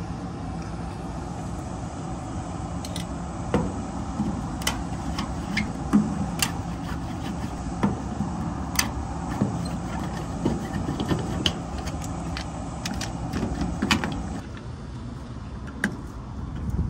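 Sharp clicks and taps of a screwdriver working the screws and lid of a plastic outdoor sensor housing, over a steady machinery drone that drops lower about fourteen seconds in.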